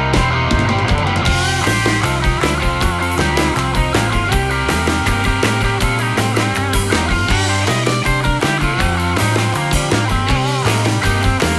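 Rock music with driving drums, bass and electric guitar, at a steady fast beat.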